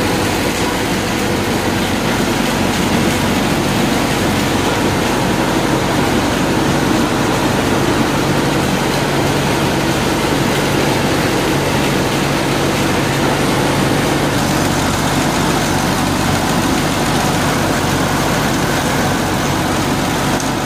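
Corn meal grinder running, a loud, steady mechanical drone with no break.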